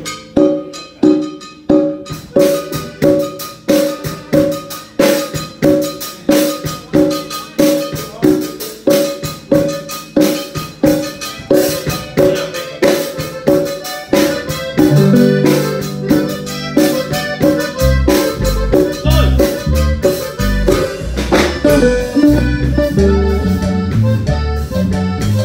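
A live band's instrumental intro: a drum kit and congas keep a steady beat with repeating pitched notes. Bass guitar comes in about fifteen seconds in, and the low end grows fuller a few seconds later.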